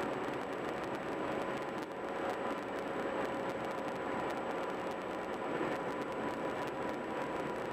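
Steady road and tyre noise from a car driving at highway speed, with a faint steady whine underneath.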